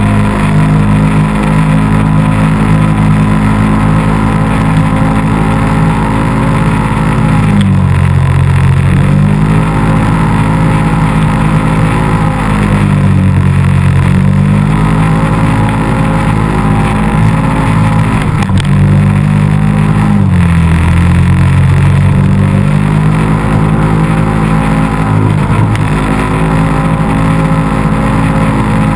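ATV engine running loud and close, held at steady revs, with the revs dropping and climbing back about four times as the throttle is eased off and reapplied.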